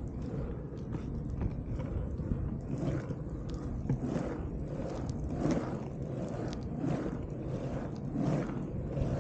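Longboard wheels rolling on asphalt. The rumble swells every second or so as the rider carves and pumps through turns on a loose Waterborn surf-skate adapter, with scattered light clicks between the swells.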